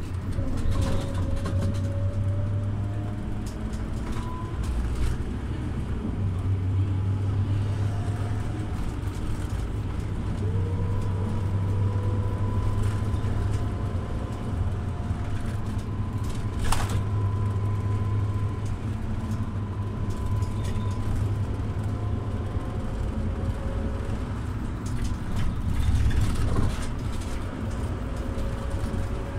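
Scania OmniLink city bus driving: a steady low engine drone with thin whines that slowly rise and fall as it speeds up and slows. One sharp click comes a little past halfway.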